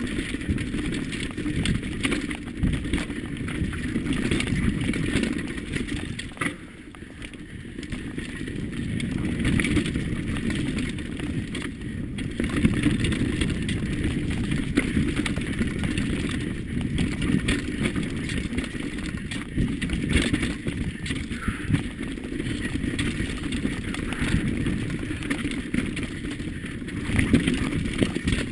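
Custom-built Intense Slopestyle mountain bike descending a dirt forest trail at speed: steady wind rumble on a helmet-mounted action camera, with tyre noise on dirt and frequent clattering knocks as the bike hits bumps. The level drops briefly about seven seconds in, then picks up again.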